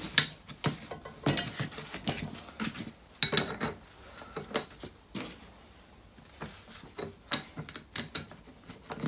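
Metal jig plate and small fixings being handled and fitted onto an anti-roll bar: scattered light metal clinks and knocks, quieter for a couple of seconds in the middle.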